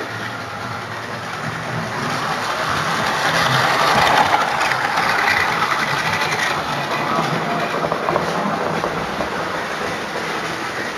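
Model train running past on the layout: its electric motor and wheels rolling on the rails, growing louder to a peak about four to five seconds in, then fading.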